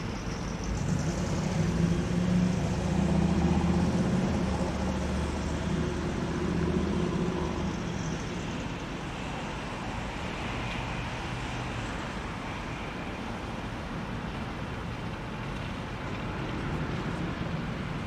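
A diesel locomotive's engine running, loudest for the first several seconds and then fading into a steady background noise.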